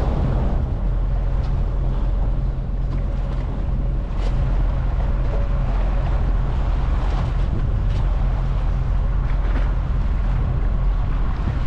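A sailboat's auxiliary engine running steadily under way, a low even drone, with wind noise on the microphone and water washing past the hull.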